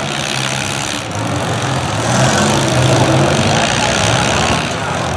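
Several demolition derby cars' engines running and revving, getting louder from about two seconds in.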